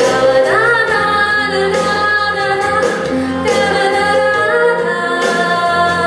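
A woman singing a slow ballad into a handheld microphone over an instrumental backing accompaniment with held notes, her voice rising into a long wavering note about half a second in.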